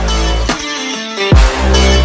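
Electronic trap-style background music with deep bass hits that slide down in pitch, one about a second and a half in, over steady synth notes.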